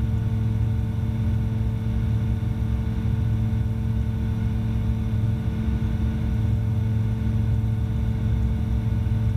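Evektor SportStar's Rotax 912 engine and propeller droning steadily at climb power, heard from inside the cockpit, with an unchanging pitch.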